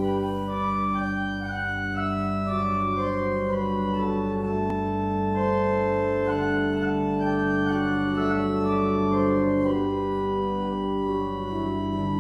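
Church organ playing slow, sustained chords: low bass notes held long while the upper notes move from chord to chord.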